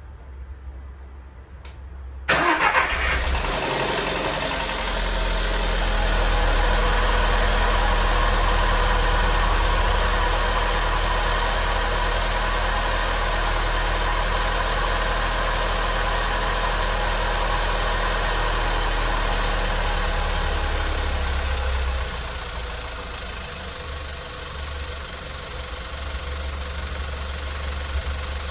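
Car engine cranked and catching about two seconds in, then running at a raised idle that drops to a lower, steadier idle near the end. The owner hears an odd noise when it starts and does not know its cause.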